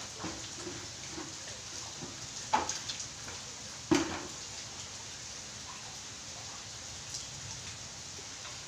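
Rain falling on plants and a wet tiled terrace: a steady hiss with scattered small drips. Two louder sharp knocks come about a second and a half apart a few seconds in.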